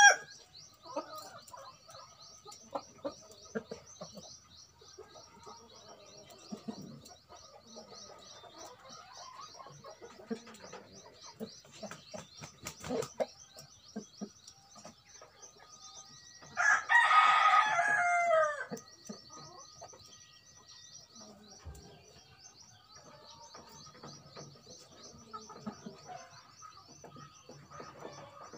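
Indonesian native (ayam kampung) rooster crowing once, a loud call of about two seconds a little past the middle that falls in pitch at its end. Around it are soft scattered clicks and rustles and a steady high pulsing buzz.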